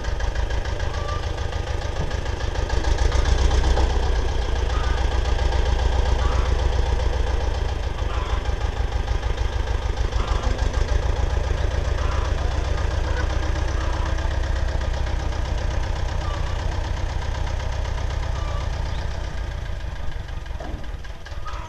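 Ursus tractor's diesel engine running under load with a fast, even knock, working a front loader. It gets louder about three seconds in and eases slightly later.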